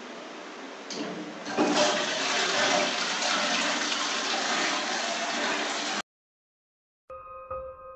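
Toilet cistern flushing: a rush of water that swells about a second and a half in and cuts off suddenly about six seconds in.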